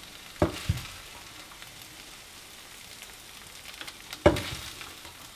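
Plastic spoon scooping cooked bulgur from a pan into a small glass bowl: soft scraping with a few sharp knocks of the spoon, two near the start and the loudest about four seconds in.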